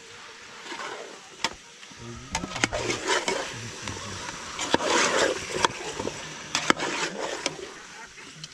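Metal spoon stirring and lifting chicken and potatoes in an aluminium cooking pot: sharp clinks of spoon on pot about once a second, with a longer spell of scraping and stirring about five seconds in.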